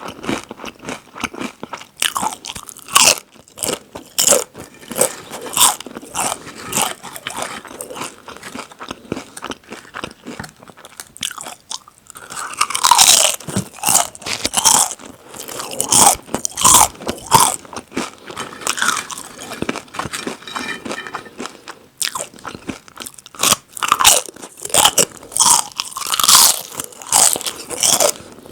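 Close-miked crunching of chips being bitten and chewed, a dense run of sharp crackles that grows busier and louder from about twelve seconds in.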